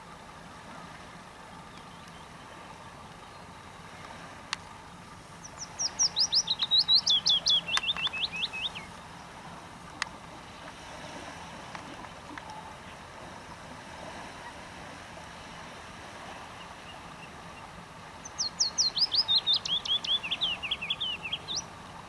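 A small songbird sings two phrases, about ten seconds apart. Each phrase is a fast run of short, clear, downslurred notes, about eight a second, that steps down in pitch over roughly three seconds. The second phrase ends on a quick rising note.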